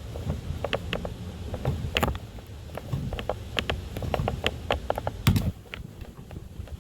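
Screwdriver prying up the crimped lip of a tachometer's soft metal bezel ring, a little at a time: irregular small clicks and scrapes, with a sharper click about two seconds in and another near five seconds.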